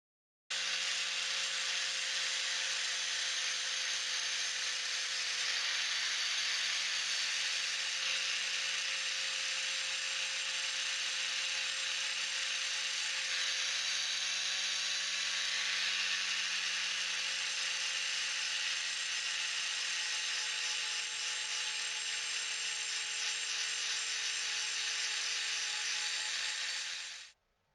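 Angle grinder running steadily while grinding new bevels into a kitchen knife blade: a steady motor hum under a dense, hissing grinding noise. It cuts in and cuts off abruptly.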